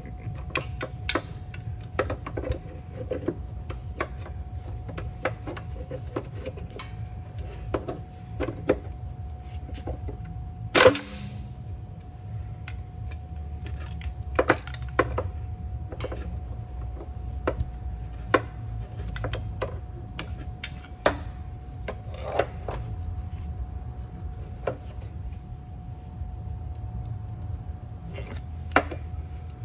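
Metal tools clinking and knocking at irregular intervals against the old driveshaft carrier bearing support as it is worked loose, with one loud metallic clank about eleven seconds in. A steady low hum and a faint constant whine run underneath.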